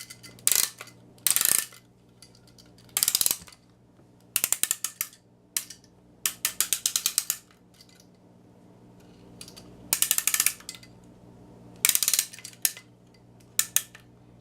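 Clockwork spring motor of a 1920s Hafner wind-up toy train being wound with its key: rapid ratchet clicking in about eight short bursts, one per turn of the key, with pauses between turns.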